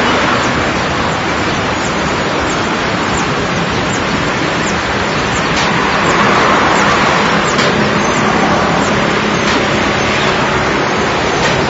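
Dense, steady rushing noise from layered spring-garden field recordings, with short, high, falling chirps scattered through it.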